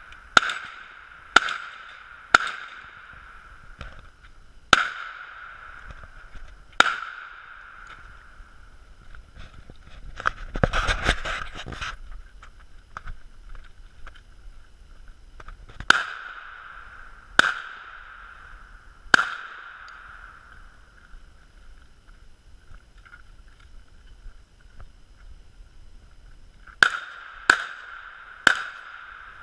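Gunfire on a multigun match stage. Five pistol shots come in the first seven seconds, then three more shots around the middle and three quick ones near the end, each with a short ringing decay.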